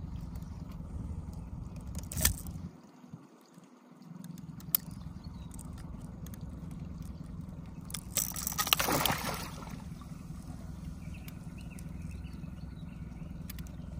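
Water lapping and gurgling against a small boat's hull under a steady low rumble, with a sharp knock about two seconds in and a louder burst of splashing about eight to nine seconds in.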